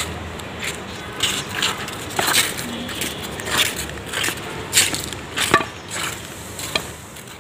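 Footsteps of several people walking, crunching irregularly on the ground.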